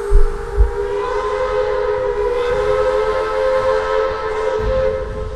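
Train horn blaring as one long, steady chord, with two heavy low thumps just after it starts and a low rumble rising under it near the end.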